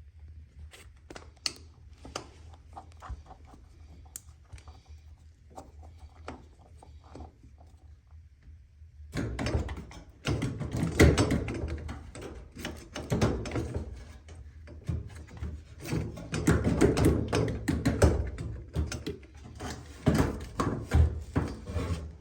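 Handling of washing-machine parts: scattered light clicks and knocks, then from about nine seconds in, a longer, louder stretch of clattering, knocking and rubbing.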